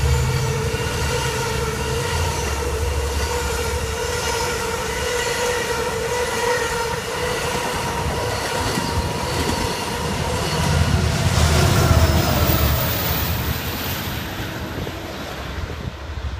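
Long Island Rail Road train running by: a steady low rumble with sustained tones over it, swelling about eleven seconds in and fading near the end.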